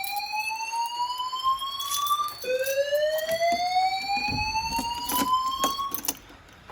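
Fire alarm voice evacuation speakers sounding the evacuation 'whoop' tone, a loud rising sweep repeated about every four seconds. One sweep ends about two seconds in and the next climbs until about six seconds in. Scattered sharp knocks run through it.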